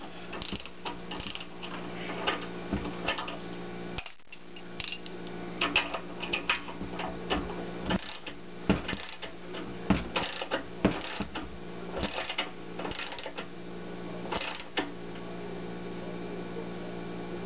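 Ratchet wrench clicking in irregular runs, with metal clinks, as it turns the threaded bushing press tool pulling a subframe bushing into place; the clicking stops about 15 seconds in. A steady low hum runs underneath.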